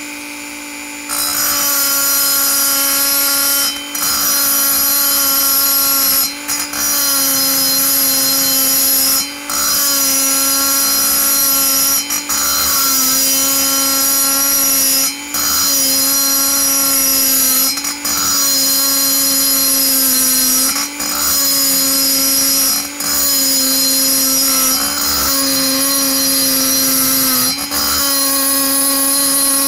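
Handheld rotary tool spinning a small grinding bit in the exhaust port of a two-stroke chainsaw cylinder, a steady high-pitched whine. Every two to three seconds the whine drops briefly in pitch and level as the bit bites into the port wall.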